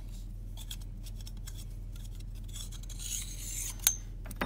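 Brass compression nut being turned off a PTFE-taped thread by hand: faint handling ticks, then a short dry rasping rub about three seconds in that ends in a sharp click, with a second click near the end. A steady low electrical hum lies underneath.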